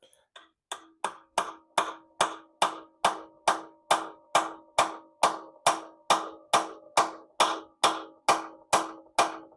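Hammer tapping steadily on a metal pin, about two and a half blows a second, each blow ringing briefly with a clear metallic note. It is driving a timing-chain guide pin home on a Mercedes M110 engine.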